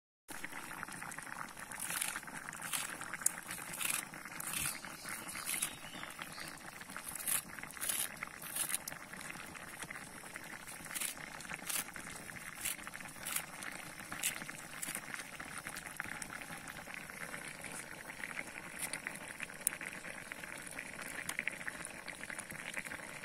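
Fish stew bubbling in a metal pot over a wood fire: a steady simmering hiss with many small pops and crackles.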